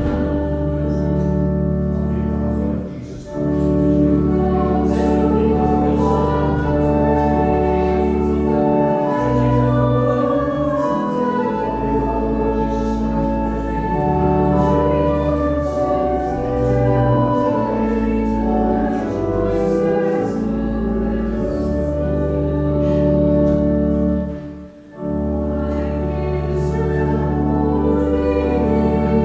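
Church organ accompanying congregational singing of a hymn, in slow held notes over a sustained pedal bass. The music breaks briefly twice, about three seconds in and again near the end, like pauses between lines or verses.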